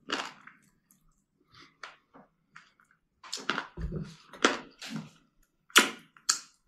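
Eating sounds: a man chewing, smacking his lips and licking his fingers, in short irregular mouth noises, with a quiet gap from about half a second to three seconds in and a dull thump around four seconds.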